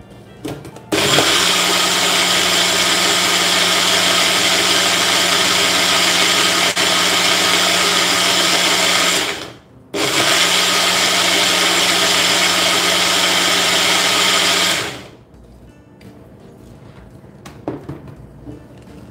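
Bullet-style personal blender running at full speed, blending carrot puree with yogurt into buttermilk. It runs for about eight seconds, stops briefly, runs about five seconds more, then winds down. A few light clicks follow as the jar is taken off the base.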